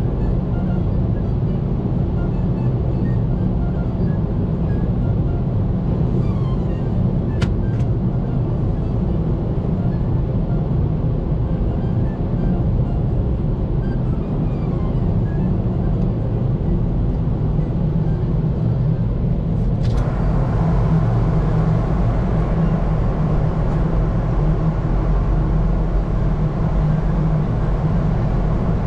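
Steady, loud low rumble of a vehicle in motion. About two-thirds of the way through, a click is followed by a step up to a brighter, louder noise.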